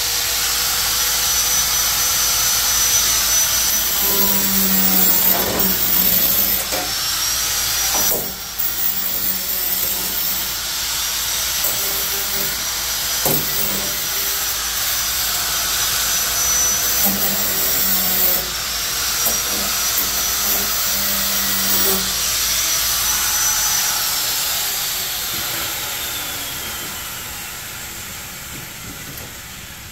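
Handheld power grinder running against a freshly cut sheet-metal edge to deburr it: a steady high whine over a rough grinding hiss. About 23 seconds in it is switched off and winds down with a falling whine.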